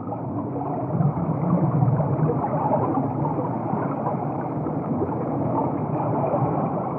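Underwater ambience: a steady, muffled rush of water with nothing high-pitched in it.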